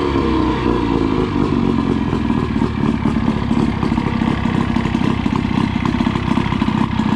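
Outboard motor running just after a cold start, having sat for three weeks. Its pitch eases down in the first moments, then it settles into a steady fast idle.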